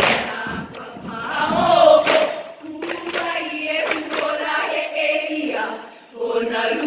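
Group of voices chanting a Hawaiian mele in unison on a few held notes, with dull, sharp beats of ipu heke double-gourd drums struck in time.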